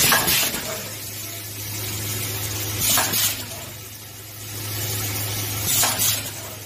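Automatic safety-net hemming and grommet-punching line running. Its vibratory grommet feeder bowl gives a steady low hum, and three short sharp bursts about three seconds apart come from the line's pneumatic cylinders.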